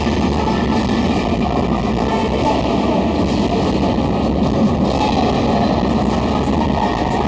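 Loud routine music from a sound system, blurred together with crowd noise into a steady, dense wash.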